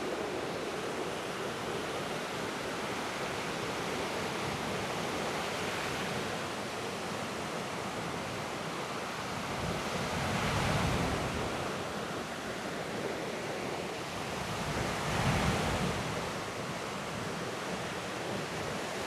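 Distant roar of a departing Airbus A320neo's CFM LEAP-1A jet engines, echoing off the Rock of Gibraltar: a steady rushing noise that swells twice, about ten and fifteen seconds in.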